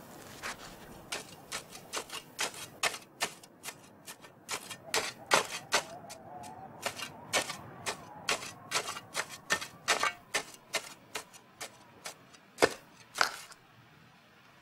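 Spades digging into heavy soil in the excavation: an irregular run of sharp chops and scrapes, two or three a second, stopping shortly before the end.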